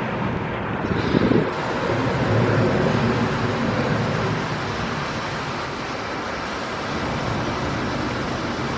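Twin jet engines of a Ryanair Boeing 737 at climb-out power just after takeoff, a steady rumble. A gust of wind buffets the microphone about a second in.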